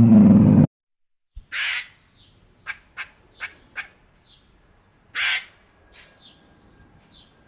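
A short low growl at the start, then meerkat calls: two longer harsh squawking calls several seconds apart, with a run of four quick sharp chirps between them.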